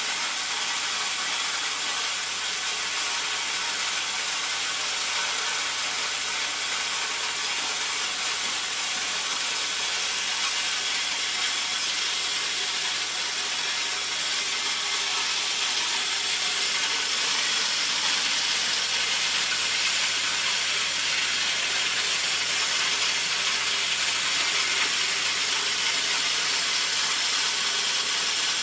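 A180 stone-disc corn grinder, driven by a 2.2 kW electric motor, running steadily while cracking corn kernels into grits: a continuous hissing grind that grows a little louder past the middle.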